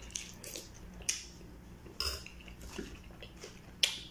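Close-up eating sounds: a few short, wet mouth clicks while chewing, and near the end a sharp clink of a metal fork against the plate.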